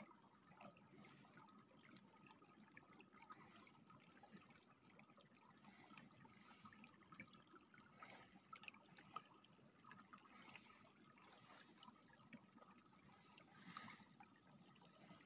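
Faint trickling of a shallow, partly iced-over stream running over stones, with scattered small ticks and a brief louder one near the end.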